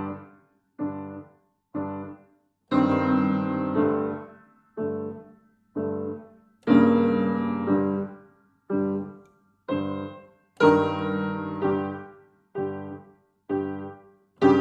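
Piano playing a slow, heavy phrase of detached chords: two short chords, then a longer held chord, repeated about every four seconds with clear silences between them.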